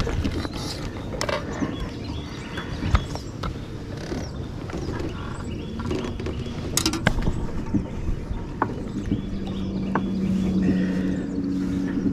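Scattered clicks and knocks of fishing tackle being handled, with a sharp click about seven seconds in and a low steady hum coming in from about nine seconds.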